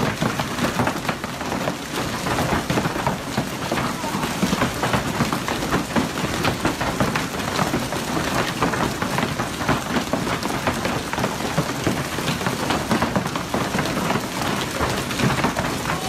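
Hailstones pelting the ground in a heavy storm: a dense, steady clatter of countless small impacts.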